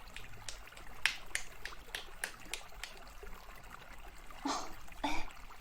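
Close-miked ASMR trigger sounds: a faint trickle of water with a string of small sharp clicks over the first few seconds, then two soft swishes near the end.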